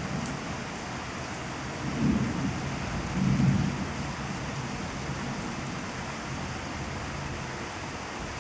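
Thunderstorm: steady rain hiss with two short low rumbles of mild thunder, about two seconds in and again about three and a half seconds in.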